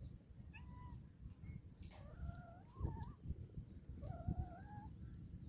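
A cat yowling: a short call, then two longer drawn-out, wavering calls about two seconds apart, over a low rumble.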